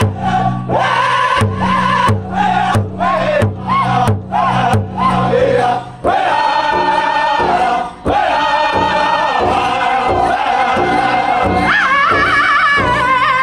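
Powwow drum group singing a men's chicken dance song in unison around a large shared drum, the drumsticks striking together about twice a second. Near the end a higher, wavering voice rises above the group.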